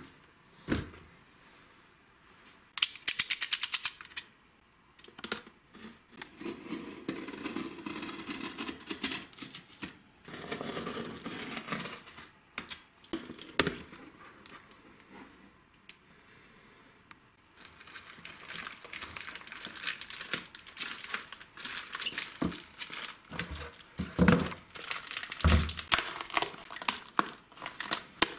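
Unboxing sounds: a cardboard box handled and opened, and plastic film crinkling and rustling. A quick run of clicks comes about three seconds in, and two dull thumps come near the end.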